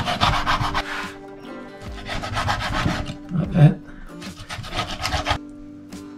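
Knife cutting a raw flake (shark) fillet into small cubes on a cutting board: quick strokes in three runs, with a short low knock about halfway through.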